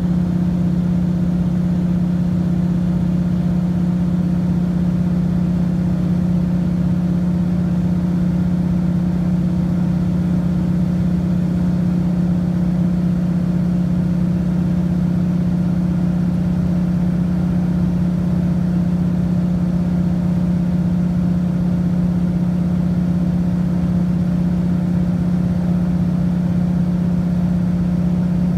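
Floatplane engine and propeller droning steadily in level flight, heard from inside the cabin, with a strong unchanging low hum.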